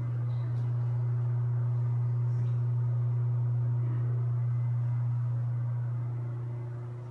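A steady low hum that swells in at the start and fades away near the end.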